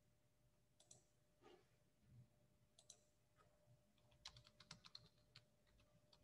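Near silence broken by faint computer keyboard clicks: a few single clicks, then a quick run of clicks about four to five seconds in.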